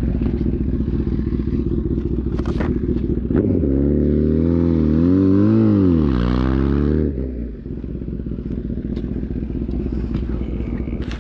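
Motorcycle engine running at a steady idle with a fast pulsing beat; for a few seconds in the middle the engine note rises and falls smoothly as the throttle is worked, then it settles back to a steady idle.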